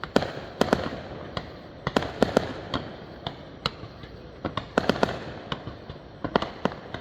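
Fireworks going off: a run of sharp cracks and pops at irregular intervals, some coming in quick clusters of two or three.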